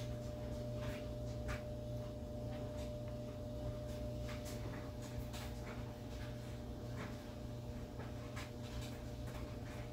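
Faint handling noise: light rubbing and scattered small taps, over a steady low hum with a thin steady whine.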